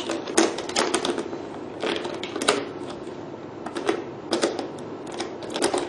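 Hands working fittings on a hydrodermabrasion facial machine: about four bursts of sharp clicks and rattles, as a latch is pulled open and adjusted for tightness.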